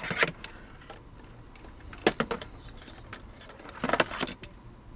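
Clusters of sharp clicks and rattles, three times, over the low steady rumble of a moving passenger train car.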